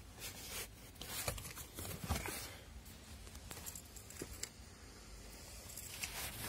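Rustling and scattered light clicks of handling, as a hand brushes the plastic trim under a car's dashboard and the phone moves.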